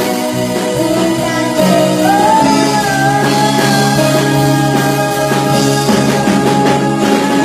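A child singing a Burmese worship song into a microphone over a live band of keyboard, guitar and drums, with a long held note starting about two seconds in.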